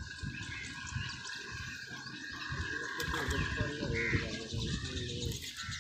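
Water splashing and sloshing as a cast net is hauled up out of shallow water by hand.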